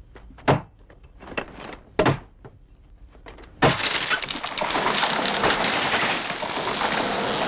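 A few sharp wooden knocks, like an axe striking a trunk. About three and a half seconds in, a sudden long, loud crash of cracking branches and rustling leaves as a tree falls through the forest canopy.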